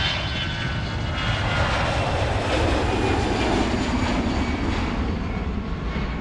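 Airbus A350's Rolls-Royce Trent XWB turbofan engines at takeoff power as the airliner lifts off and climbs out: a loud, steady jet roar with a high fan whine, swelling in the first second.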